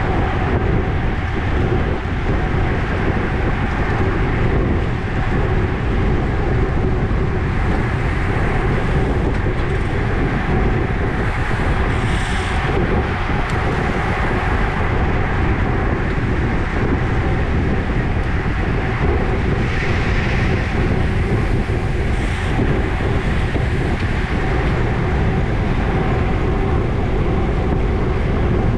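Steady rush of wind over a bike-mounted camera's microphone at about 22 mph, mixed with the tyre noise of road bikes riding in a pack on asphalt.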